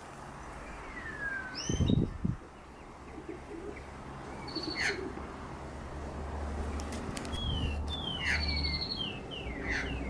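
Australian magpies calling: a string of short, clear whistled notes that slide downward in pitch, with a few brief higher steady whistles, coming more thickly in the second half. A brief low thump about two seconds in.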